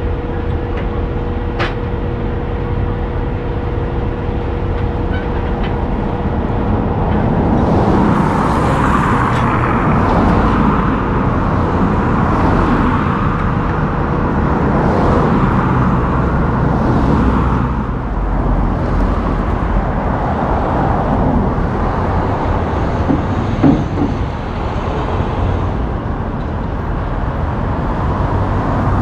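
Low steady rumble of an idling truck engine with road traffic swelling and fading. There are a couple of sharp metal clicks near the start, as the car carrier's tie-downs are worked.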